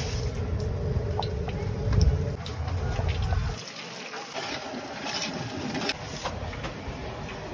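Whole spices (dried red chillies, bay leaves, cumin, cinnamon) sizzling and crackling in hot oil in a large aluminium kadhai as they are stirred with a flat spatula: the tempering of the spices before the onions go in. A low rumble underneath stops about three and a half seconds in.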